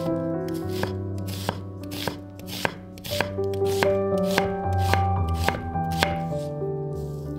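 Chef's knife slicing a red onion on a wooden cutting board. The blade knocks on the board about twice a second and stops about six seconds in, over background music.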